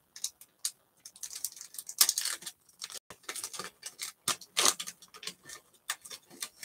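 Foil wrapper of a baseball card pack crinkling and crackling as it is torn open and peeled apart by hand: a busy run of sharp, irregular crackles and rustles.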